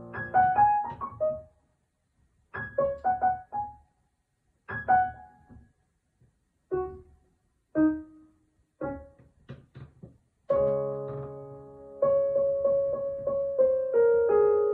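Solo piano playing short phrases of a few quickly fading notes, with brief silences between them. About two-thirds of the way through it moves to sustained chords with notes held and overlapping.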